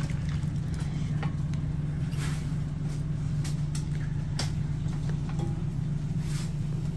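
Steady low machine hum, with a few light clinks and scrapes as a serving spoon works in a metal pot and over a plate.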